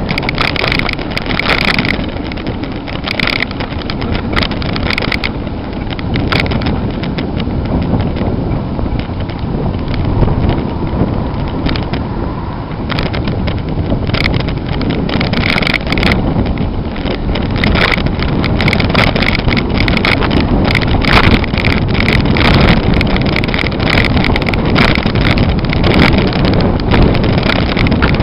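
Wind buffeting the microphone of a bicycle coasting without pedalling, over a steady rumble from the tyres and road, with irregular clicks and rattles.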